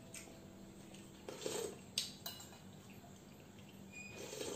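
Spoon and fork scraping and clinking on a plate during a meal, with a short scrape and then two sharp clinks about two seconds in, and another scrape near the end.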